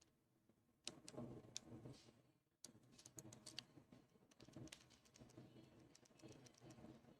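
A city rake scraping and clicking over the pin tumblers inside a Master Lock No. 3 padlock's keyway as it is raked open: faint, quick metallic clicks and scrapes, pausing briefly just before the halfway point.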